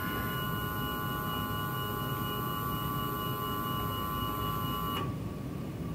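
Desktop CNC router's stepper motors driving the X-axis in a single steady jog: an even, multi-pitched electronic whine that stops suddenly about five seconds in. The move is a set-distance X-axis jog for movement calibration.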